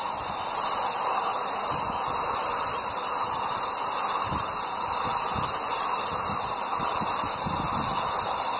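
Vande Bharat Express (Train 18) electric trainset passing close by at speed: a steady rushing noise with a few dull low thumps.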